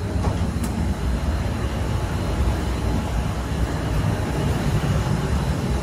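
Steady noise of a data centre's server fans and cooling units running, with two light clicks just after the start as the glass door is pushed.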